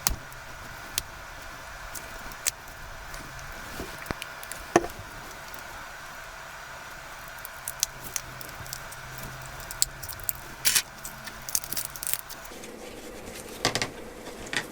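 Scattered small clicks and taps of tools and parts being handled on a smartphone during disassembly, over a steady electrical hum that stops near the end.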